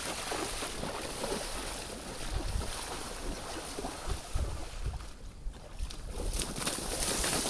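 Chest waders splashing and sloshing step by step through a shallow muddy puddle, with wind rumbling on the microphone.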